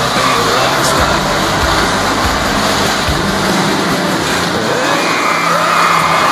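A small motor-driven machine running steadily and loudly, with a high whine over a low hum.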